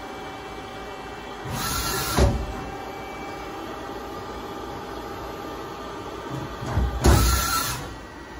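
Hyundai Kia SKT210SY CNC lathe running: a steady hum with a faint whine. Twice, about five seconds apart, comes a short rushing burst with a clunk as the tool turret slides traverse rapidly.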